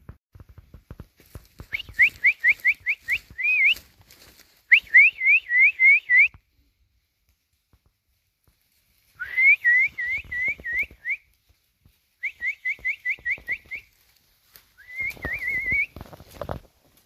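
A person whistling: five short bursts of quick, upward-flicking notes, about four or five notes a second, with pauses between the bursts.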